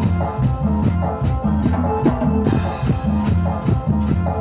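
A live band of electric guitar, keyboards and drum kit playing a rhythmic instrumental tune with a steady beat and a repeating bass line.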